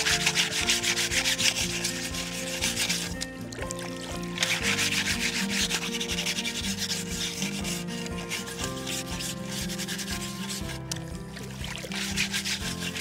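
Freshly dug burdock roots being scrubbed by hand in shallow creek water: fast rubbing and swishing strokes in two long spells, with a short break about three seconds in and softer scrubbing near the end.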